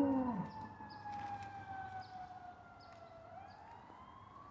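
Fire truck siren wailing, its pitch falling slowly and then turning to rise again about three seconds in. A dog's howl trails off with a falling pitch in the first half second.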